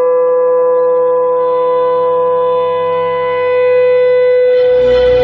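A long, steady horn-like note held on one pitch, with fuller low music coming in under it near the end.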